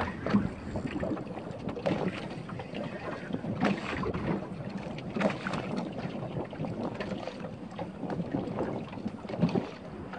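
Wind on the microphone and water slapping against a small boat's hull, with scattered irregular knocks and clicks.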